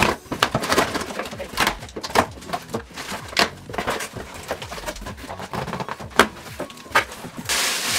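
A large cardboard box being opened with scissors: a run of sharp clicks, snips and scrapes as the tape and flaps are cut, then a loud rustling of tissue paper starting near the end.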